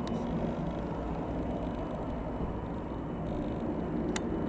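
AgustaWestland AW119 Koala single-engine helicopter in flight overhead just after take-off, a steady low rotor and turbine rumble. A sharp click about four seconds in.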